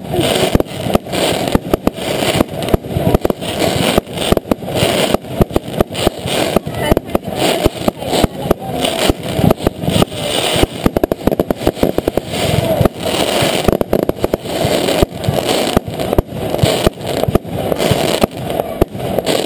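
Fireworks going off in a rapid barrage, with irregular bangs and crackles coming several times a second throughout.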